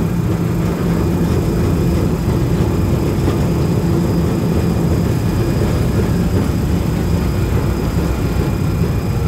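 Historic Santa Teresa electric tram running along its track, heard from on board the open-sided car: a steady low rumble of wheels on the rails and the car in motion, with a faint steady whine above it.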